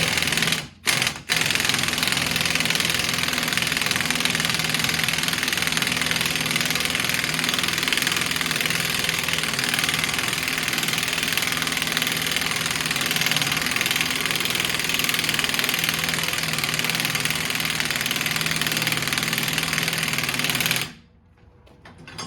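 Impact wrench hammering on a 32 mm axle retaining nut to break it loose. Two short blips, then a continuous run of rapid hammering that stops near the end.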